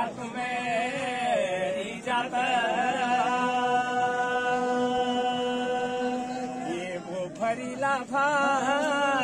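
Men singing a Pahadi devotional folk song for the goddess Nanda Devi, unaccompanied. Long held notes run through the middle, and a wavering, ornamented line comes near the end.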